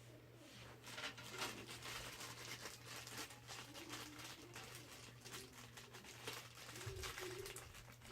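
Faint rustling, crinkling and small clicks of computer parts and packaging being handled, over a low steady hum.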